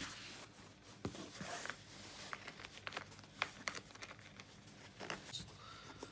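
Handling noises as a fabric-covered hard headphone case is rubbed and unzipped: scattered small clicks and rustling.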